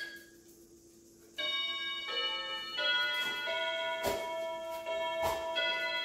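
Electronic doorbell chime playing a multi-note tune, starting about a second and a half in and stepping from note to note. Two sharp clicks are heard over it near the middle.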